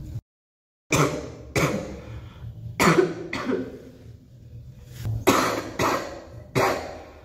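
A girl coughing: about seven sharp coughs in short bouts, after a brief dropout to dead silence near the start.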